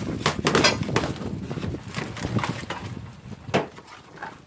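Paper wrapping and a plastic mailer bag rustling and crinkling as packed items are unwrapped by hand, busiest in the first second or so and tapering off.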